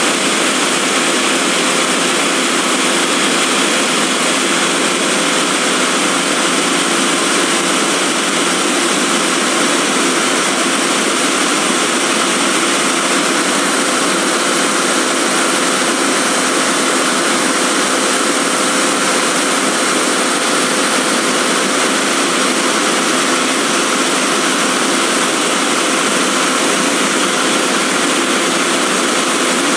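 Diesel engine of a HOWO-chassis XCMG aerial lift fire truck running steadily with an unchanging hum, powering the boom hydraulics as the basket is lowered.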